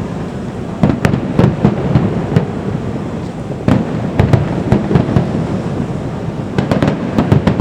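Fireworks bursting in a display: volleys of sharp bangs over a continuous low rumble of distant booms.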